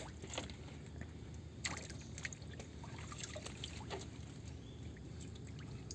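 Shallow water trickling and sloshing in the bottom of a boat full of live shrimp, faint, with a few scattered small splashes and clicks.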